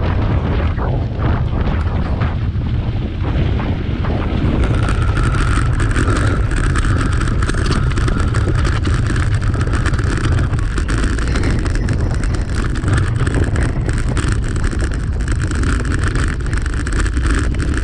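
Wind buffeting the microphone of a bicycle-mounted camera as the bicycle rolls along a mountain path. About four and a half seconds in, the bike starts clattering and rattling over cobblestones, with a steady higher hum alongside.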